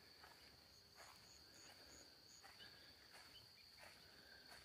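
Near silence: a faint, steady high-pitched insect drone, with a quick run of five high chirps about a second in.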